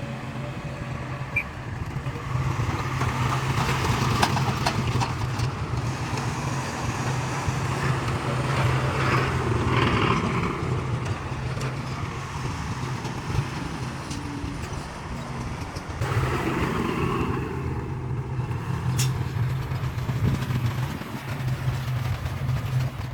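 Heavy diesel engine of construction machinery running steadily under load, its low drone swelling and easing, with a few sharp knocks.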